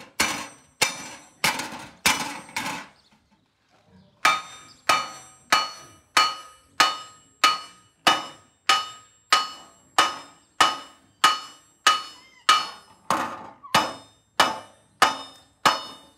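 Hand hammer striking a copper sheet as it is shaped by hand. Each blow rings like metal, about one and a half blows a second, with a pause of about a second and a half about three seconds in.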